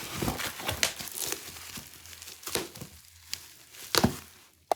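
Plastic bubble wrap crinkling and rustling in irregular crackles as it is handled, with a louder crackle about four seconds in.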